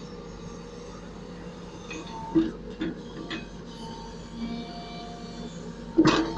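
Case 770 backhoe loader's engine running steadily while its backhoe bucket works among loose stones, with a few knocks and clatters of stone, the loudest cluster near the end.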